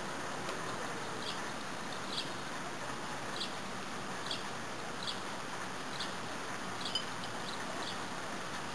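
Light rain falling as a steady soft hiss, with a short high chirp about once a second.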